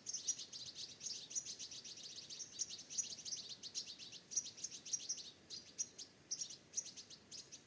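Small birds chirping busily: a dense stream of short, high chirps with only brief gaps.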